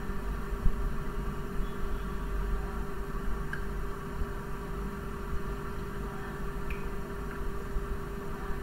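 Steady low hum of background noise with one constant tone running through it, and a few faint scattered clicks.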